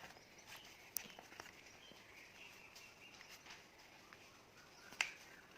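A sheet of A4 paper being handled: faint light rustles and taps, with a sharper tap about five seconds in.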